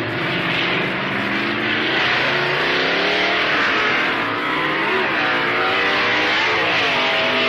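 Two Super Stock drag cars' V8 engines at full throttle, racing side by side down the strip. The engine pitch climbs and drops back several times as the cars go up through the gears.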